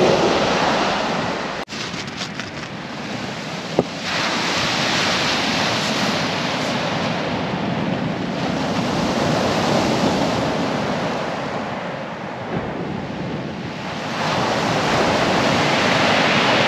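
Sea surf breaking and washing up a shingle beach, rising and falling every few seconds.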